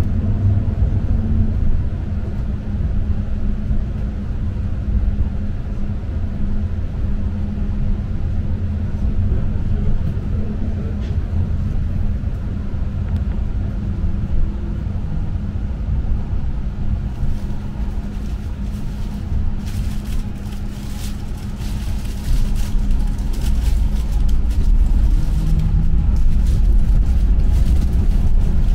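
Tram running, heard from inside the car: a steady low rumble with a steady hum, and a run of sharp clicks and rattles in the second half, the rumble growing louder near the end.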